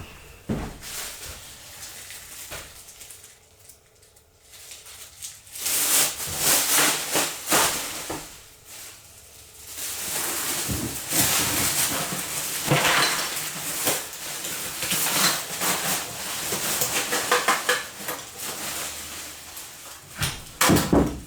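Trash being gathered and sorted by hand: irregular rustling and clattering of plastic bags and junk. It is quieter for the first few seconds, then grows busy.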